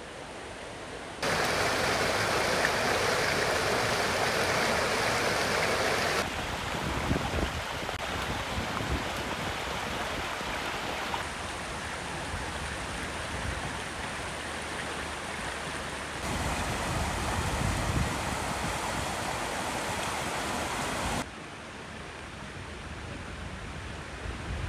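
Steady rushing outdoor noise, with no distinct events, in short sections about five seconds long. Its loudness and tone change abruptly at each cut.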